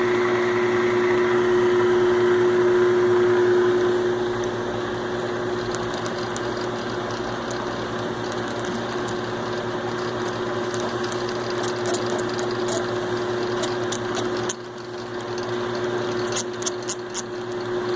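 Grizzly DF-1237G metal lathe running under power, a steady mechanical hum with a strong steady tone. About three and a half seconds before the end the sound drops suddenly, then a quick run of sharp clicks follows.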